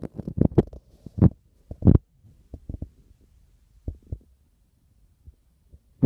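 Irregular dull thumps and knocks: a quick cluster of loud ones in the first two seconds, then fainter scattered taps and one more sharp knock at the very end.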